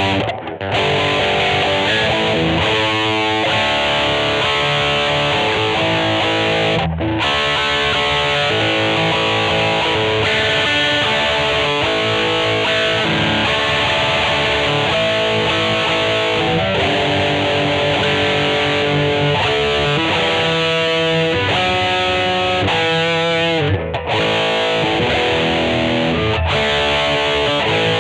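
2003 Godin SD 24 electric guitar played with distortion, noodling through lead runs and held notes, some with wavering vibrato, broken by a couple of short pauses.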